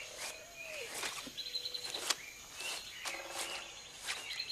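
Forest ambience of several birds calling, with short whistles, gliding notes and a brief high trill. Under them, footsteps rustle through undergrowth.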